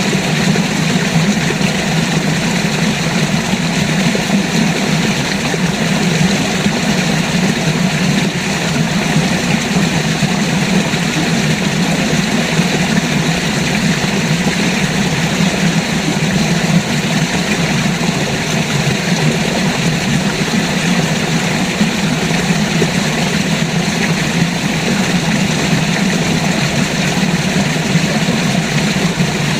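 River water rushing, a steady unbroken noise.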